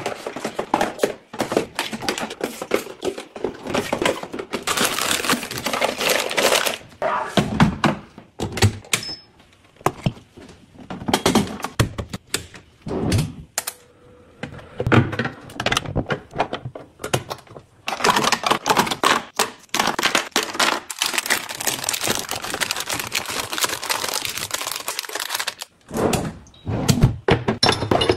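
Small household items being unpacked and put away: quick runs of clicking and rustling packaging, and knocks as things are set down, with a few brief pauses.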